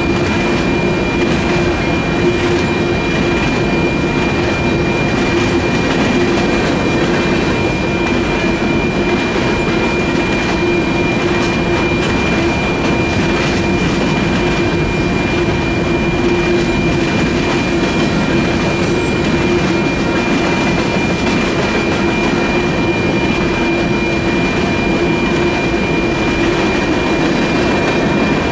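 Freight train of covered grain hopper cars rolling steadily past, the wheels running on the rails, with the crossing's electronic bells ringing through the activation.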